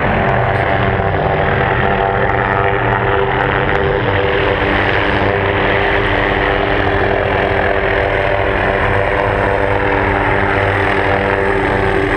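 A helicopter flying low overhead, its rotor and engine giving a steady, loud drone.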